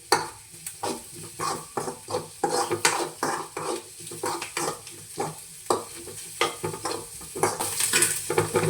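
Onions frying in hot oil in a pan, sizzling, while a spoon stirs them, scraping and knocking against the pan in repeated irregular strokes.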